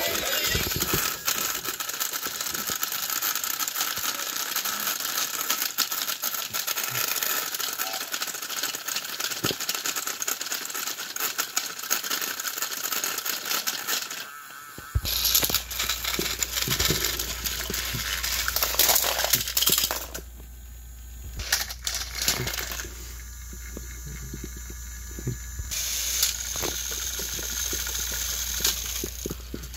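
Battery-powered Thomas & Friends toy engines pushing head-to-head on plastic track, their motors and wheels making a steady rattling clatter. The sound changes abruptly about halfway through as another matchup starts.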